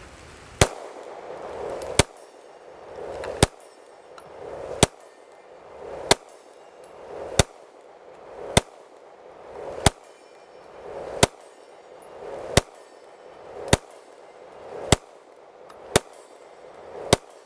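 Girsan MC28 9mm pistol fired in slow, steady single shots, about fourteen of them, one roughly every second and a quarter.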